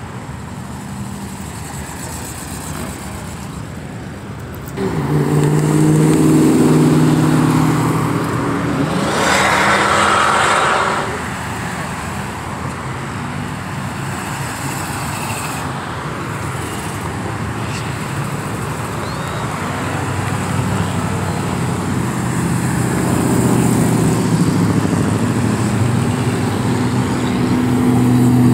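Cars and trucks driving past on a street. One loud exhaust cuts in suddenly about five seconds in, followed by the rush of a passing vehicle, and another engine grows louder near the end.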